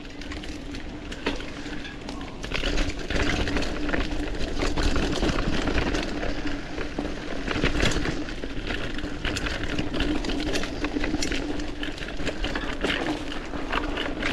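Mountain bike riding down a wet, muddy trail: tyres running through mud with the bike rattling, many sharp clicks and knocks over a steady hum. It gets louder about two and a half seconds in as the bike picks up speed.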